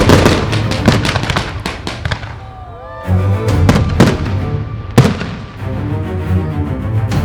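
Fireworks bursting and crackling in quick succession, with one especially loud bang about five seconds in, over music playing throughout.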